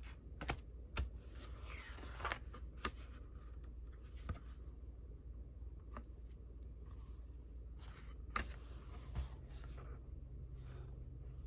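Old paper cards and photographs being handled: light rustling of paper with a few sharp taps and clicks as pieces are picked up and set down.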